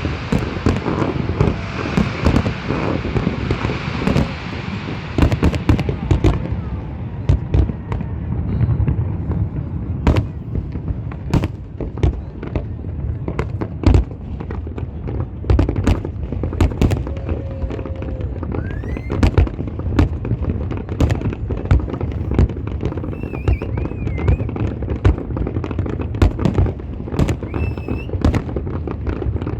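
Fireworks display: a continuous run of sharp bangs and crackles, one after another, over a low rumble, with a hiss in the first few seconds and a few short whistles.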